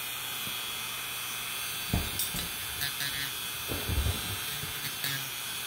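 Small handheld rotary tool running with a steady high-pitched whine as it grinds down toenails, with a few low bumps about two and four seconds in.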